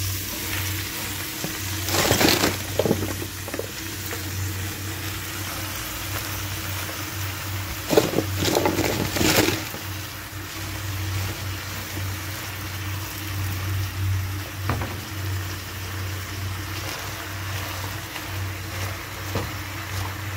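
Bok choy frying in oil in a nonstick pan: a steady sizzle, with two louder rushes of sizzling and rustling, about two seconds in and again around eight to nine seconds in, as the leafy tops are dropped into the pan. A few light clicks come near the end.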